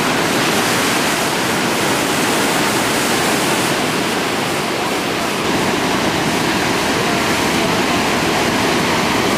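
Heavy ocean surf breaking and churning over a rocky shore: a steady rush of white water with no single wave standing out.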